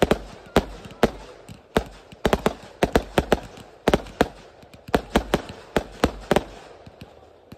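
Fireworks: ground-fired batteries launching shots that burst overhead, making a fast, irregular string of sharp bangs, several a second, that stops near the end.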